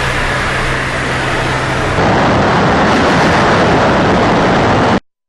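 Tu-22M3 bomber in flight: steady jet engine and airflow noise inside the cockpit, with a low steady hum. About two seconds in it switches to louder, brighter airflow noise from outside the fuselage, which cuts off abruptly near the end.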